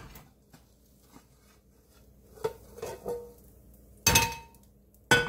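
A ceramic plate and a Tefal nonstick frying pan knocking together as the pan is turned upside down onto the plate to flip a cabbage-and-egg pancake: a few light taps, then a loud clatter with a brief ring about four seconds in, and another sharp knock near the end.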